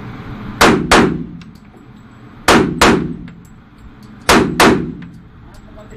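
Glock 22 Gen 4 .40 S&W pistol fired in an indoor range: six loud shots in three quick pairs, about two seconds between pairs, each shot ringing briefly off the room.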